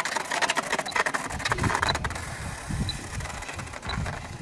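RC A-4 Skyhawk model jet skidding across ice on its belly: a dense clattering scrape that thins out after about two seconds into an uneven low rumble as the slide slows.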